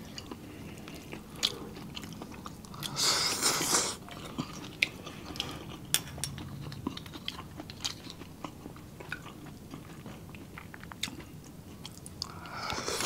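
Close-miked mouth sounds of people eating seafood: chewing with many small wet clicks and smacks, a louder slurp about three seconds in, and another near the end as an oyster is spooned into the mouth.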